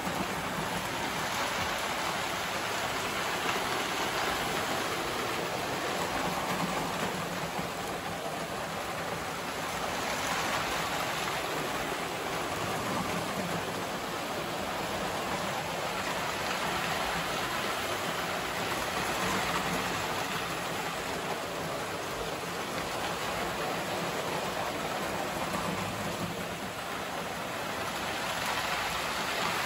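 Several model trains running around a large layout on metal track: a steady rushing rumble of wheels and motors that swells and fades gently as trains pass closer.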